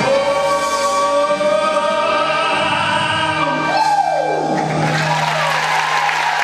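A male voice holds a long final note over a backing track, and the music ends with a steep falling slide in pitch about four seconds in. Audience applause starts over the last held low note.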